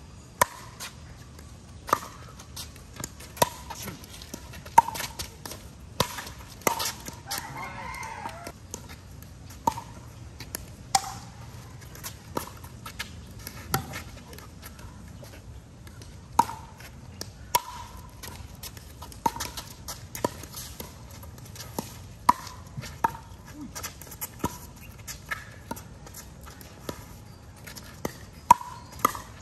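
Pickleball rallies: sharp, hollow pocks of paddles hitting the plastic ball, often about a second apart, with short pauses between points. A rooster crows once in the background about seven seconds in.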